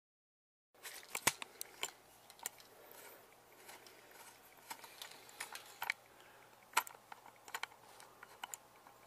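Handling noise of a video camera being picked up and adjusted by hand: irregular sharp clicks and knocks with rubbing against the microphone, starting about a second in after dead silence.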